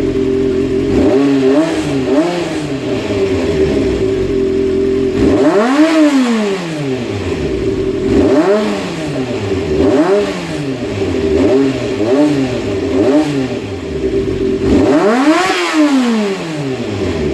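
Honda CBX400F's inline-four engine idling and being blipped on the throttle about ten times. The two biggest revs come about six seconds in and near the end, and each time the revs drop cleanly back to a steady idle. The carburetors have just been repaired and adjusted.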